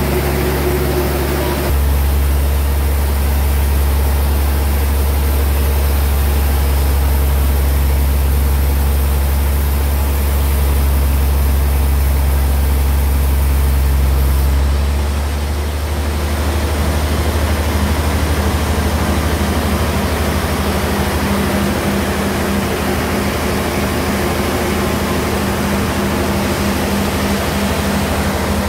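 Band sawmill machinery running with a steady low drone; the sound shifts slightly about halfway through.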